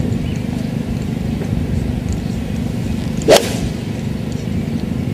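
A golf club striking a ball in a full swing: one sharp crack about three seconds in, over a steady low background rumble.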